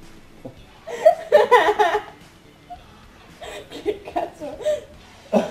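People laughing in two bouts, one about a second in and another around the middle, with quiet in between.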